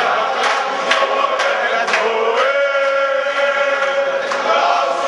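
Football supporters chanting in unison over a drum beating about twice a second. About halfway through the voices hold one long note.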